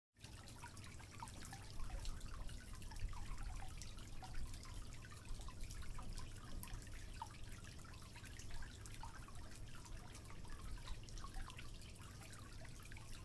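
Water dripping faintly: many small, irregular drops falling in quick succession.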